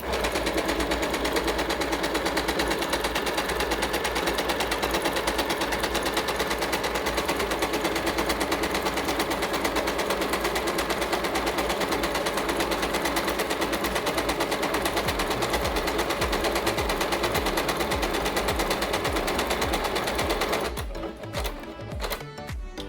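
Yamata digital sewing machine running steadily at speed, its needle stitching a rapid even rhythm through one of its built-in decorative stitch patterns. It stops about 21 seconds in, leaving background music.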